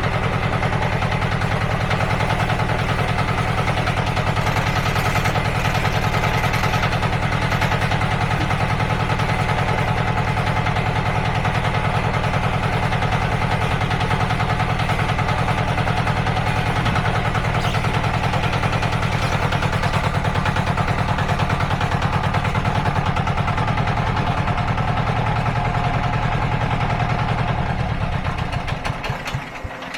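Mini skid steer's engine running at a steady speed, then slowing and stopping near the end.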